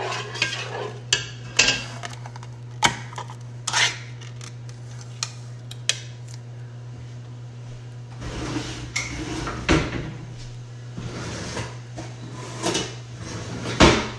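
Metal cookware and utensils clinking and knocking as they are handled and set down: scattered sharp clinks, the loudest near the end, with some rustling between them over a steady low hum.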